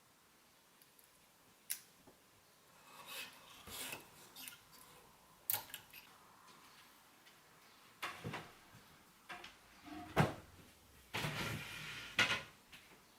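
Scattered clicks, knocks and brief rustling of small objects being handled, with the sharpest knock about ten seconds in.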